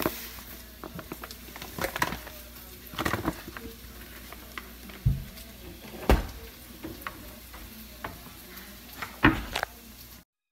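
Dry tortilla flour poured into a plastic bowl: a soft hiss with scattered light knocks and taps, cutting off abruptly shortly before the end.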